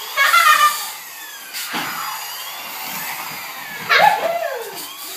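Toy fire truck's electronic siren and engine sound effect, with repeated falling wails over a noisy drone. Short vocal cries break in twice, briefly near the start and loudest about four seconds in.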